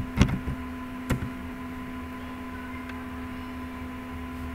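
A few computer keyboard keystrokes within the first second or so, then a steady electrical hum with faint hiss.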